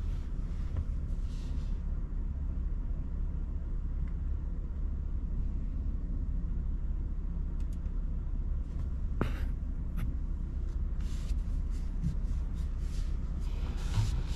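BMW iX3 electric SUV driving: a steady low rumble of tyres and road noise, with no engine sound, and a few short clicks about two-thirds of the way through.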